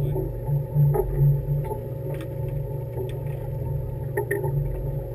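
Fishing boat's engine running with a steady low hum, with a few short faint clicks and knocks about a second apart.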